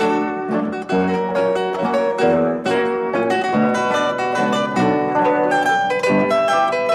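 Background music: a melody of quickly plucked notes, several to the second.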